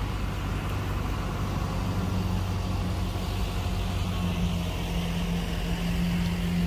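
John Deere tractor engine running steadily nearby, a low even hum that grows a little stronger about four seconds in.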